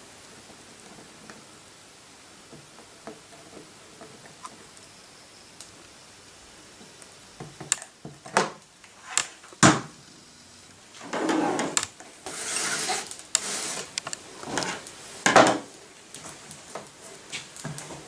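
A quiet stretch, then a run of sharp knocks and clicks with a few longer crackling rustles: a hot glue gun being set down on a wooden table beside its plastic case, and a thin plastic water bottle and tray being handled.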